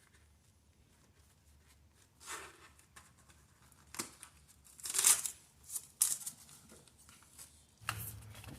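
Padding material being handled and pressed onto the car's floor, crinkling and tearing in several short rustles, the loudest about five seconds in.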